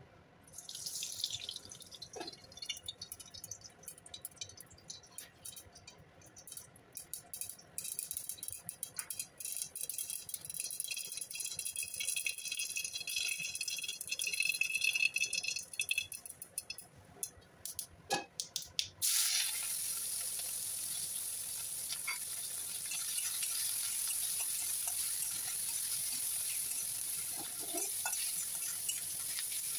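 Hot cooking oil in a wok, first crackling and popping irregularly, then, about two-thirds of the way through, turning abruptly into a steady loud sizzle as sliced onions fry.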